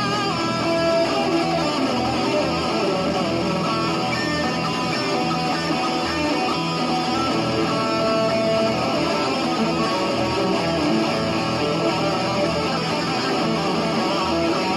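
Guitar playing continuously at a steady level, with many notes ringing together.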